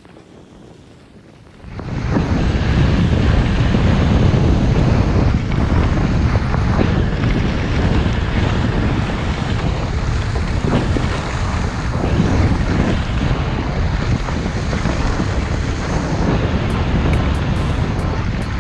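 Heavy wind rushing over the microphone on a fast downhill ski run, with skis scraping over snow. It starts suddenly about two seconds in and stays loud and steady.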